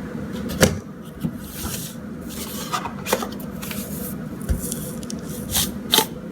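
Kitchen handling sounds while spices and salt go into a bowl of flour: several sharp clicks and taps of a spoon and containers, with short bursts of soft rustling.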